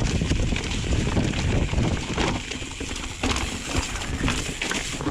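Mountain bike rattling and clattering over a rocky trail, tyres rolling on rock under a steady rush of wind on the action camera's microphone.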